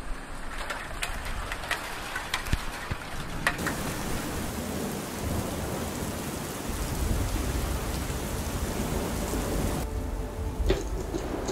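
Rain falling: scattered drips at first, then a steady heavy hiss of rain on water and stones. A low rumble sets in about midway. Near the end the sound turns duller, as rain heard through a window.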